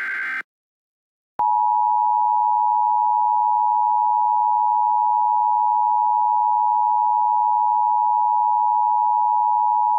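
The last Emergency Alert System header data burst, a harsh warbling screech, ends a moment in. After about a second of silence the EAS attention signal starts: a loud, steady two-tone beep that holds without change and announces that an emergency alert is about to be read.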